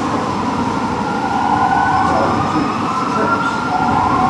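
Fire truck sirens wailing in slow rising and falling sweeps, two of them overlapping out of step, over a low rumble of engines and traffic from the street.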